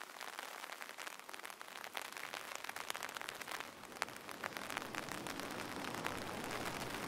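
Background rain ambience: steady rain falling, with many small drop ticks. A low rumble builds in underneath near the end.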